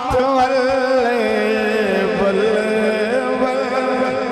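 A man's voice chanting a devotional verse in a long-drawn melodic line, holding notes with a wavering vibrato and gliding slowly between pitches.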